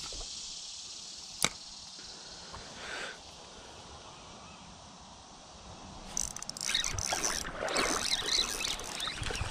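Faint steady rush of water in a shallow creek, with a single sharp click about a second and a half in. From about six seconds in comes a close run of irregular splashing and knocking.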